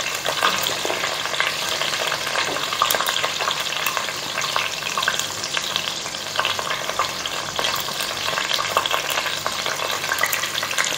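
Hot oil sizzling steadily with a dense crackle of small pops as garlic cloves fry along with curry leaves, ginger slices and whole spices.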